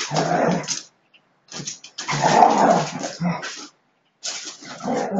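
Husky and another dog growling at each other while play-fighting, in three rough bursts of one to two seconds each. This is play growling, not a real fight.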